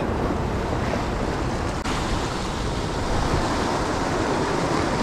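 Sea swell surging and washing over a rock ledge, mixed with wind buffeting the microphone.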